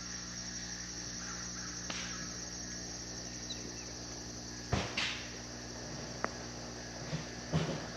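Steady high-pitched insect drone over a low steady hum, with a handful of sharp knocks and thumps: the loudest two come about five seconds in and more follow near the end.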